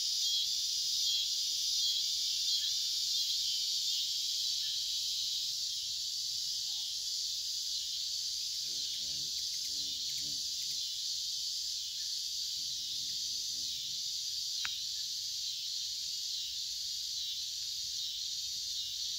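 Evening insect chorus, a steady high-pitched buzzing hiss of many crickets and other insects together.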